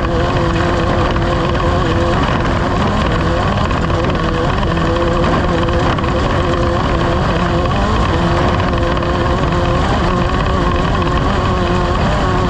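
Off-road race vehicle's engine running steadily at speed under a broad rushing noise, its note wavering slightly.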